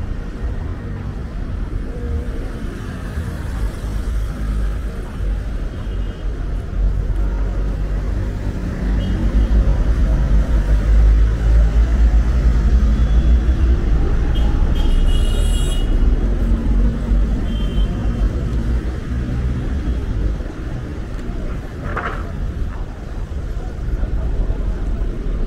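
City street traffic with a deep low rumble that swells and stays loud for several seconds in the middle, then eases off; a single sharp click sounds near the end.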